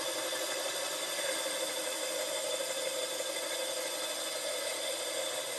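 Power drill turning a diamond hole saw through a wet concrete roof tile: a steady motor whir with the grinding of the diamond cutter in the concrete.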